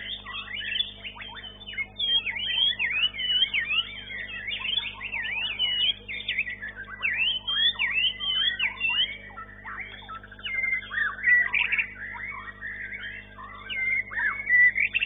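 White-rumped shama (murai batu) singing a continuous, varied song of quick whistled notes sweeping up and down, over a steady low hum.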